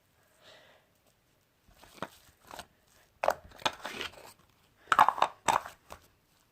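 Putty being squeezed and worked in the hands, giving a run of irregular crackling pops from about two seconds in.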